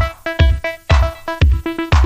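Electronic background music with a steady kick-drum beat about twice a second and short repeating synth notes.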